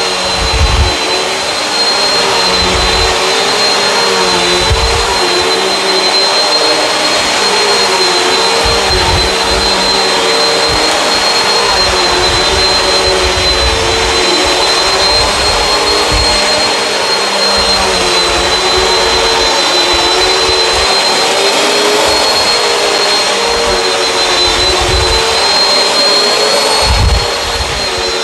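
Bissell CleanView Swivel upright vacuum running on carpet: a steady motor whine with a high tone, its lower pitch wavering slightly, with occasional low thuds throughout.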